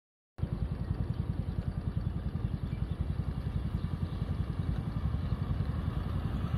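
Motorcycle-and-sidecar tricycle engine running as it drives closer, a rapid low pulsing rumble that grows gradually louder; it starts suddenly about half a second in.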